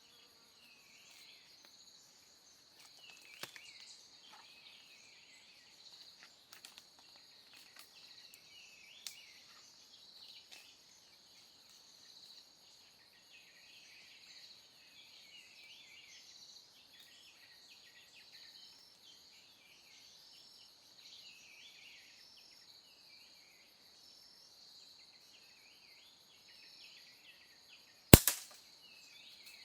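Forest ambience: a steady high drone of insects with small birds chirping throughout. Near the end comes a single loud, sharp crack.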